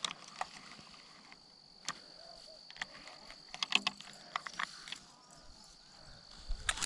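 Steady high-pitched insect trilling, with scattered clicks and ticks from a spincast fishing reel being handled, bunched about four seconds in, and a louder rustle near the end.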